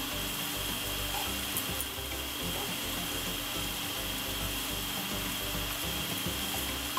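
Instant ramen noodles sizzling in an oiled nonstick frying pan as they are stirred and tossed with chopsticks, a steady hiss over light background music.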